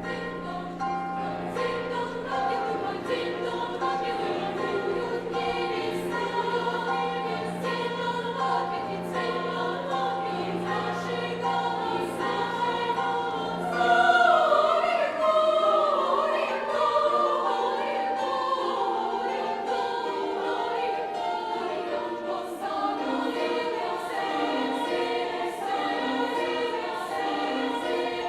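Student choir singing in several parts. The low voices hold a long note under repeated shorter phrases. About halfway through, the high voices come in louder with a falling line, and near the end short repeated figures take over.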